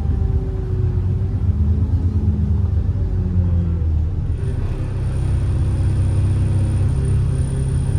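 ADL Enviro 400 double-decker bus's diesel engine running with a low rumble; about four seconds in, a high, steady turbo whistle sets in and holds over it.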